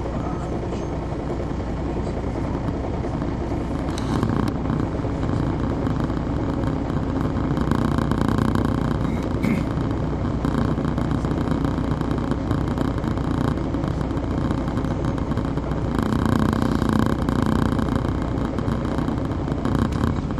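Detroit Diesel Series 60 diesel engine of a 2002 MCI D4000 coach running while the bus is under way, heard from inside the bus. The steady drone swells a few times, about four seconds in, near the middle and again near the end.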